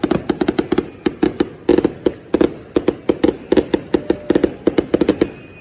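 Fireworks going off in a rapid, irregular string of sharp bangs, several a second.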